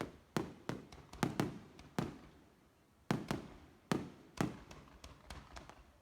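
Fireworks shells bursting: a run of irregular sharp bangs, each trailing off in a short echoing rumble, about ten in all with a brief lull midway.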